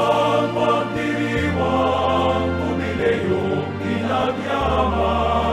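Music with a choir singing sustained notes over a low bass line that changes note every second and a half or so.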